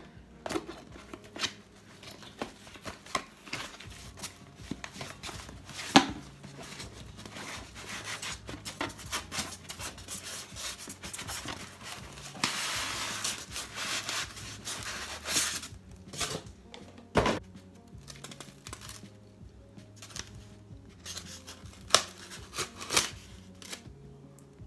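A cardboard box being cut and opened by hand: a knife slits the packaging, then cardboard flaps rub and crinkle, with a longer stretch of tearing or sliding about halfway through and scattered sharp knocks and clicks as a styrofoam insert is pulled out. Faint music plays underneath.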